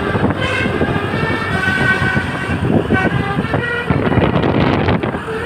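Seven-trumpet basuri telolet air horn on a bus playing a melody, its notes changing in steps, over the bus's engine and road rumble.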